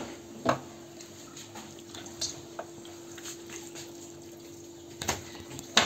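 Soft wet squelching of hands working marinade into raw whole chickens on a metal baking tray, with a few light knocks, over a faint steady hum.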